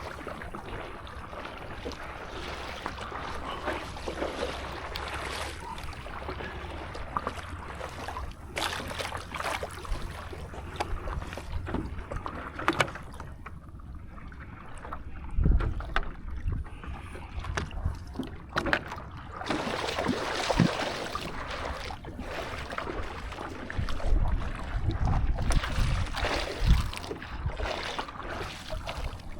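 Sea water splashing and sloshing around a stand-up paddleboard as it is paddled, in irregular bursts, with wind rumbling on the microphone underneath.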